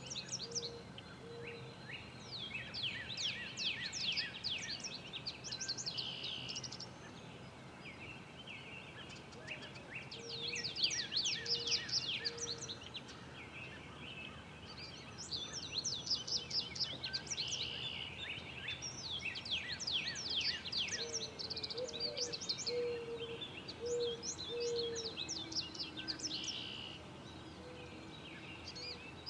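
Background songbirds singing in repeated bouts of rapid, high chirps and trills. Three times, a short series of four or five low, evenly spaced notes sounds beneath them.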